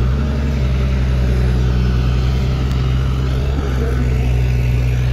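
Diesel engine of a JCB JS205 LC tracked excavator running steadily as it digs and swings a bucket of soil: a constant low drone.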